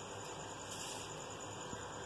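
Faint steady hiss with no distinct events.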